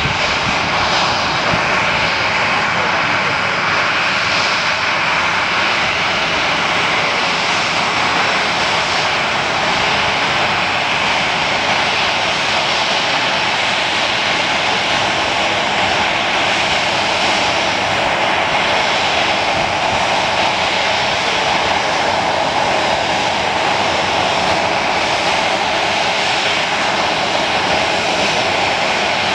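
Alaska Airlines Boeing 737-900's twin CFM56 turbofan engines running at taxi power as the jet rolls along the taxiway: a steady jet roar and whine.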